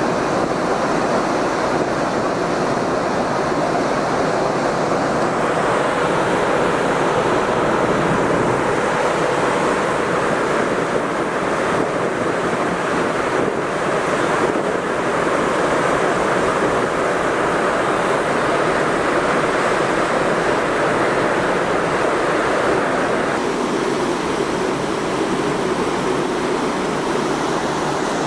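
Steady rushing noise of wind and water on the open top deck of a car ferry under way, with no distinct events.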